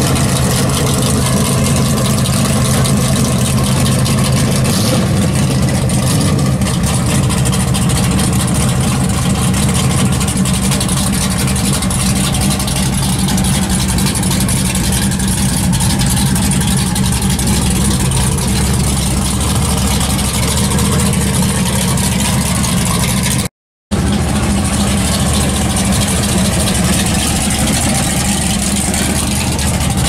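Dodge Super Bee's V8 idling steadily through its exhaust.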